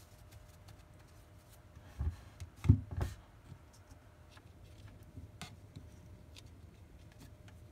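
A thick stack of trading cards handled and set down on a wooden table. Three dull thumps come about two to three seconds in, followed by a few light card clicks and rustles.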